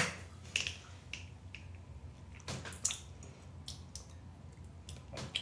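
Scattered light clicks and taps, six or so, of small objects being handled, over a steady low hum.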